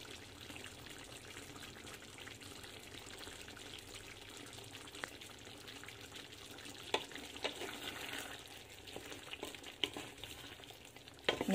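Pan of chicken apritada in tomato sauce simmering: a faint, steady bubbling hiss. A few light clicks and scrapes come toward the end as a wooden spatula stirs it.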